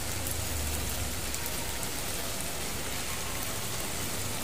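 Sliced meat and onions sizzling steadily in oil on a hot griddle pan over a portable gas stove, a continuous even hiss.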